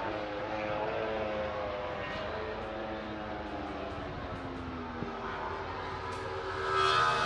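Racing motorcycle engines on the circuit: a high engine note falls slowly in pitch and fades as a bike draws away, then near the end a louder engine note rises in pitch as another bike comes up.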